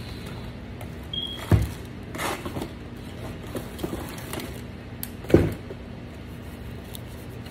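Packaging being handled: paper and cardboard inserts rustling, with two dull thumps, the first about a second and a half in and the second a little after five seconds.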